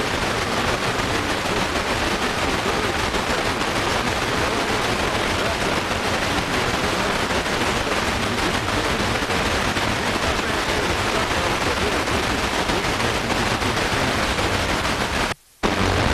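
FM radio static: steady hiss from a Sony XDR-F1HD tuner sitting on 105.9 MHz, where no station comes in clearly. About fifteen seconds in the hiss cuts out for a moment as the tuner mutes while stepping to the next frequency, then comes back.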